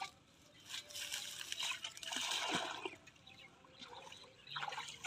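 Water splashing and trickling as fish are handled in a pot of water, with a louder stretch of splashing in the middle.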